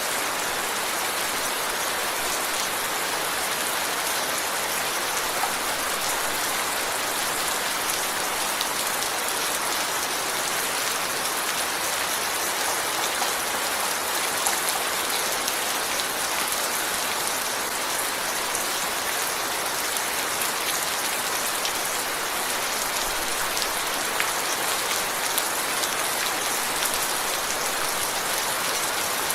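Steady rain falling, a dense even hiss of drops hitting a surface, with many small individual drop ticks throughout.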